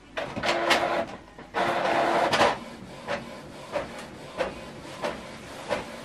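Canon PIXMA TS7451 inkjet printer starting a print job: two loud stretches of motor whirring in the first couple of seconds, then a regular beat of short clicks about every two-thirds of a second as it prints.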